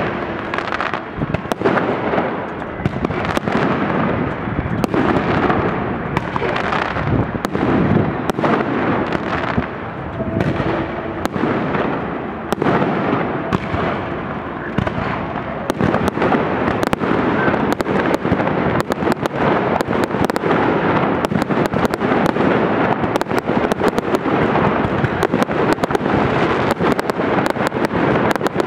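Large fireworks display: continuous overlapping bangs and crackling bursts, turning into a dense, rapid crackle over the second half.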